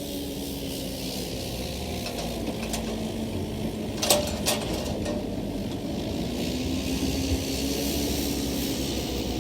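An engine running steadily, its pitch drifting slightly up and down, with two sharp knocks about four seconds in.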